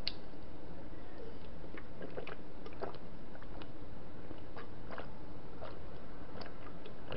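A person drinking water from a clear plastic cup, with faint, irregular swallowing clicks over a steady low hiss.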